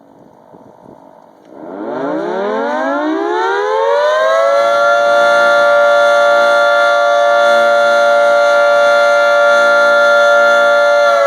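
24-horn outdoor tornado warning siren starting up: it winds up from a low pitch to a loud, steady wail over about three seconds, beginning about a second and a half in, then holds one tone.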